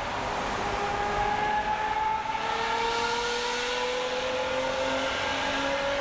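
Lamborghini Aventador V12 with an aftermarket Inconel Brilliant exhaust accelerating steadily, its engine note rising slowly and evenly through a gear, heard from inside the car in a road tunnel.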